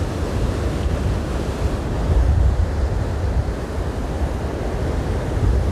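Stormy sea surf breaking on the beach, with strong wind buffeting the microphone in a heavy low rumble.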